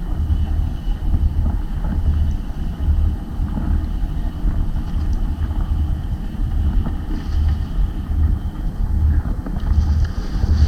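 Wind rumbling steadily on the microphone aboard a small boat on the water, with uneven low buffeting and a faint hiss above it.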